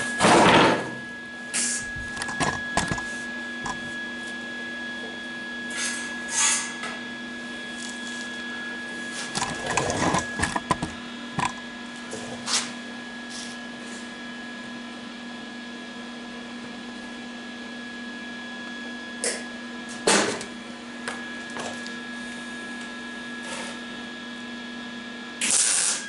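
A welder's steady hum under scattered clanks and knocks of metal being handled. Near the end comes a short, loud burst as an arc tack weld is struck on the thin steel valance.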